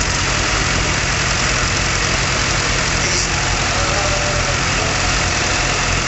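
John Deere tractor's diesel engine running loud and steady under load as it drags a weight-transfer pulling sled.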